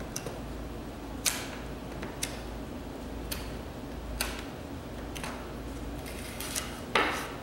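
Claw hammer striking a wooden 1x6 board about once a second, seven sharp knocks with the last but one the loudest, denting the wood to give it a distressed look.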